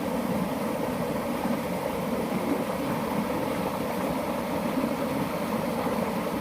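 A motor running steadily, with no change in speed.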